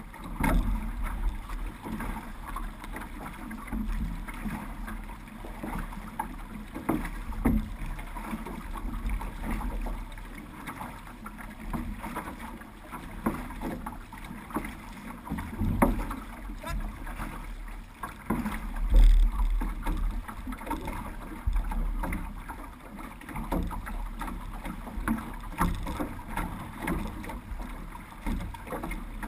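Water sloshing and splashing against the hull of an OC6 outrigger canoe as its crew paddles, with irregular low rumbling thumps, the loudest about 19 seconds in.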